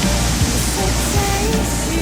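Background music with a melody and a low beat, over the steady rush of a waterfall.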